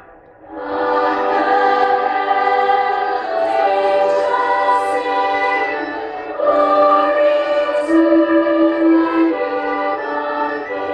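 School choir singing in long held notes, starting about half a second in, with a short break between phrases about six seconds in.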